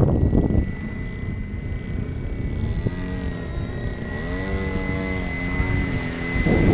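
470-size radio-controlled BO 105 scale helicopter in flight: a steady high whine, with the rotor hum rising and falling in pitch in the middle. Wind buffets the microphone at the start and again near the end.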